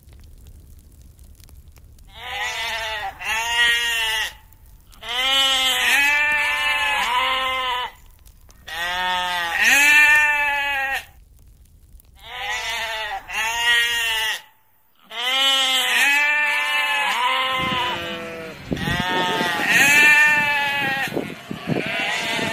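Sheep bleating: a long run of wavering baas, one after another with short gaps, starting about two seconds in, with several voices overlapping toward the end.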